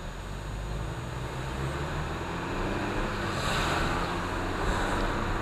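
Car engine and tyre noise heard from inside the cabin as the car gathers speed, with the engine pitch rising and the noise growing gradually louder.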